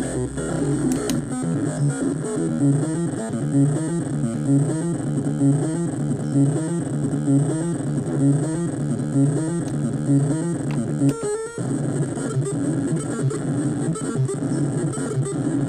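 Homemade CMOS noise machine built around a 4017 step sequencer, playing a repeating stepped pattern of low pitched electronic notes. The pattern briefly drops out about eleven seconds in.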